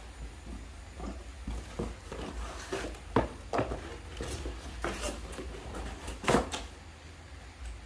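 Kitchen utensils being handled, with scattered clicks and knocks of hard items; two louder knocks come about three and six seconds in.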